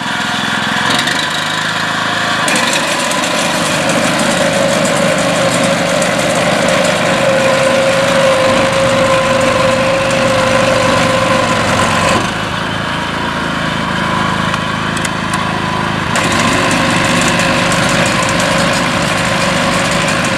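13 hp Honda engine on a BCS walk-behind tractor running steadily at speed, with a brief drop in level about twelve seconds in.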